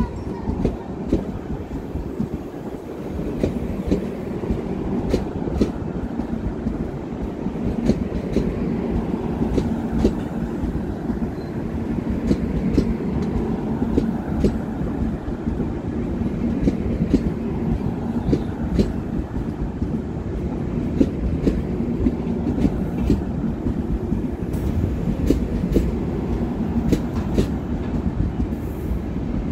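Mangala Lakshadweep Express passenger coaches rolling past, with a steady low rumble and frequent sharp clicks from the wheels over the rail joints.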